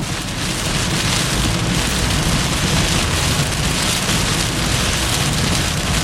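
Very heavy rain hitting a moving car, a dense steady hiss that thickens just after the start, over the car's low road noise.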